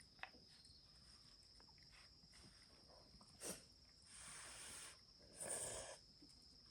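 Quiet outdoor ambience with a steady high insect-like drone, broken by a sharp click and two brief rustling noises in the second half.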